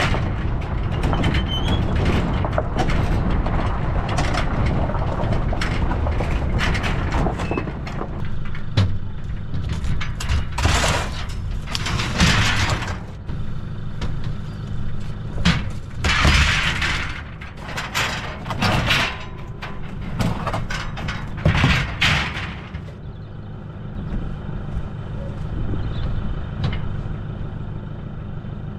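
Old Jeep's engine running steadily, with several short rushes of noise between about ten and twenty-two seconds in.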